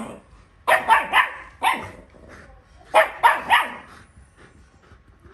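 Dog barking excitedly during rough play: a rapid run of four barks, then a pause and three more.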